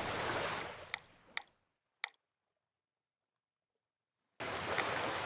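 A steady hiss that fades away, three sharp clicks about half a second apart, then dead silence until a steady rushing noise cuts in suddenly near the end.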